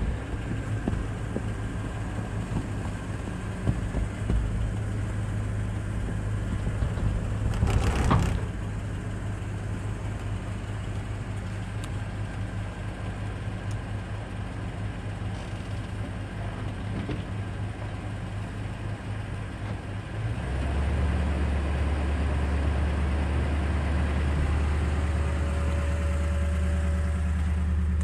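Vehicle engine idling steadily with a low hum. About twenty seconds in the hum turns deeper and louder and holds there. A brief loud rushing noise comes about eight seconds in.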